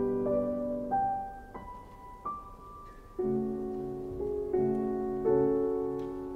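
Slow, gentle piano music: a few soft single notes climb in pitch, then fuller chords return about three seconds in.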